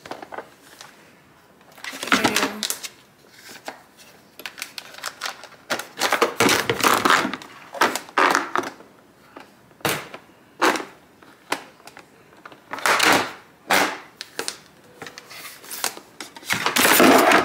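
Plastic drawer organizer trays being handled and set into an empty kitchen drawer: irregular clacks and knocks of plastic against the drawer and against each other, in several short bursts.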